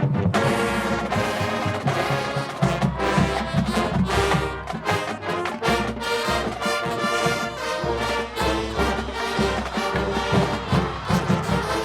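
Marching band playing: full brass chords from trumpets and trombones over a steady drum-line beat.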